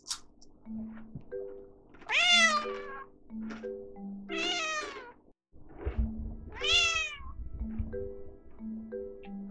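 A short-legged Genetta cat (Munchkin–Bengal cross) meows three times, each meow about a second long and dropping in pitch at its end. Light background music with marimba-like notes plays throughout.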